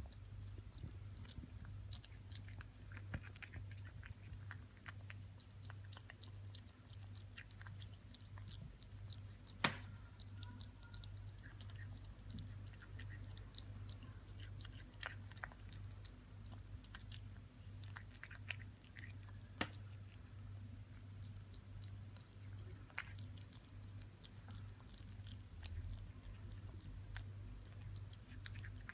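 A kitten chewing and licking raw minced meat: faint, irregular wet clicks of jaws and tongue, with a sharper click now and then, over a steady low hum.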